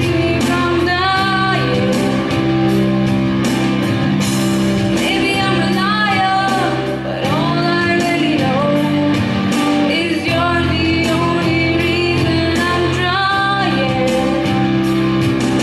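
A girl singing an English pop ballad into a microphone over a karaoke backing track, amplified through the hall's PA.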